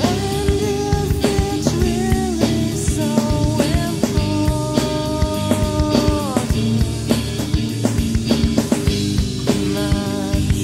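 Rock band playing an instrumental passage: a drum kit keeps a steady beat under held melody notes that slide from pitch to pitch, fading out after about six seconds.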